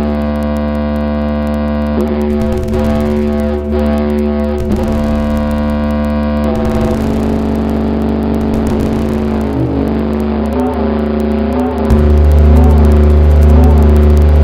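Layered steady droning tones with many harmonics, shifting in texture about six seconds in. A louder low hum joins about twelve seconds in.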